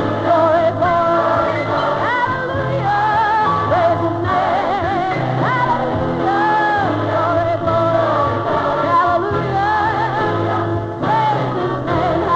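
Music: a singing voice carrying a gliding melody over instrumental accompaniment with a steady bass line.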